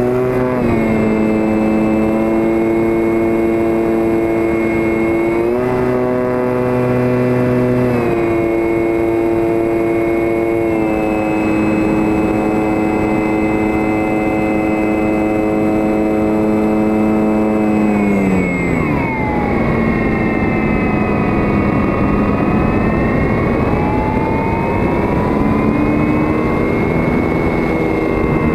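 E-flite Apprentice RC plane's electric motor and propeller heard from on board in flight: a steady whine that steps up and down a few times with the throttle. About two-thirds through, the pitch falls as the throttle is pulled back, and the lower whine then wanders up and down over the rush of air.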